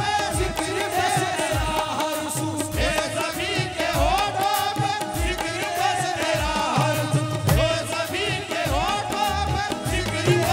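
Live qawwali music over a PA system: a singer's voice gliding and wavering over keyboard accompaniment, with drums keeping a steady beat.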